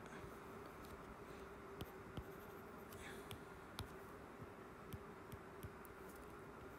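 Quiet room with a faint steady hum, broken by scattered light taps of a stylus on a tablet's glass screen as tools and pen colours are picked.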